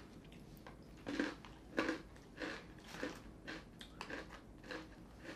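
Faint chewing of a crunchy edamame soybean snack: short mouth crunches, about one or two a second.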